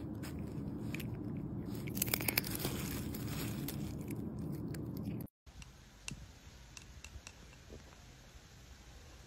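A cat biting and crunching a sunflower seed, with a quick run of crisp cracks about two seconds in. About five seconds in, the sound cuts off abruptly and comes back much quieter, with a few faint clicks.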